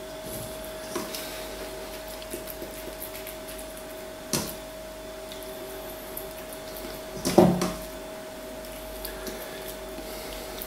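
Glass jars and a stainless steel bowl being handled while raw meat pieces are packed into the jars: a few scattered knocks and clinks, the loudest about seven seconds in, over a steady faint hum.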